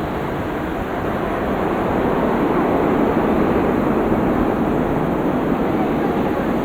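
Jet aircraft engine noise at an airport runway, a steady rushing that swells over the first few seconds and then holds.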